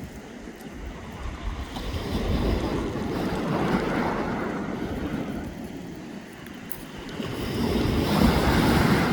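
Black Sea surf breaking on the beach, two swells of wave noise, one about two seconds in and a louder one near the end, with wind buffeting the microphone.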